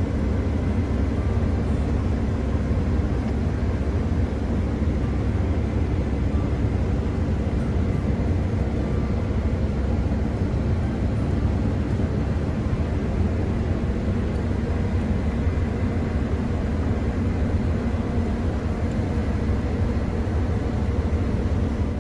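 Combine harvester running steadily at working speed: a constant low engine and machine rumble with faint steady whines higher up.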